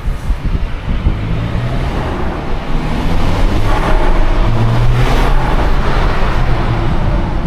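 Twin-charged Mercedes engine running as the car drives, mixed with road noise. The sound grows louder about three seconds in, then eases slightly near the end.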